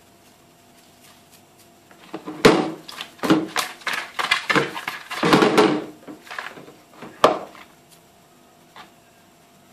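Raw silver catfish pieces being tossed and shaken in a plastic bowl: a run of knocks and sliding, slapping clatter starting about two seconds in and dying away after about five seconds.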